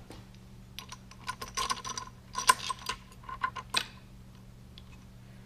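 Steel rocker clamp and hold-down hardware clinking and clattering against the milling machine's steel table as the clamp is set against the workpiece: a quick run of sharp metallic knocks with a slight ring, from about a second in to just before four seconds, loudest midway.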